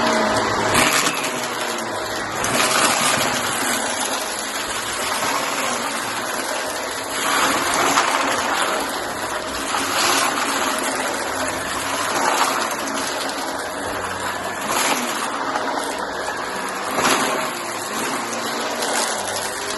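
Shark vacuum cleaner running steadily as it sucks up scattered cardboard bits, its rushing air swelling briefly about every two seconds.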